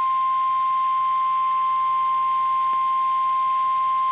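NOAA Weather Radio's warning alarm tone: one steady, unbroken high tone near 1050 Hz, the signal that an urgent warning (here a severe thunderstorm warning) follows.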